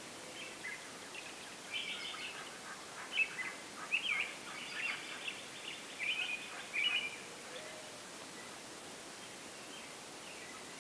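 Birds chirping in a run of short, varied calls that starts about a second and a half in and stops after about seven seconds, over a steady faint hiss.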